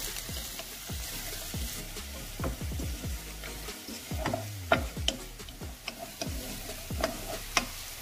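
Chopped onions sizzling in hot oil in a nonstick pot while a wooden spatula stirs them, scraping and tapping against the pan with a few sharp knocks.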